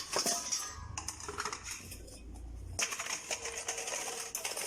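Kitchen items being picked up and set down on a marble countertop: a run of quick, irregular clicks and rattles, busiest in the first second and again in the last two seconds.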